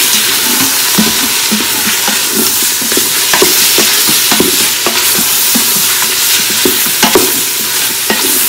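Beef, onions and spices sizzling in oil in an Instant Pot's stainless steel inner pot on sauté mode. The mixture is stirred, with frequent short scrapes against the pot about once or twice a second. It is being fried (bhuna) to cook off the raw smell of the spices and meat.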